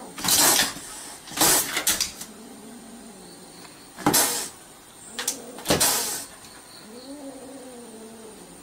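Domestic cat hissing defensively at a dog, four short sharp hisses, then a wavering, drawn-out yowl near the end.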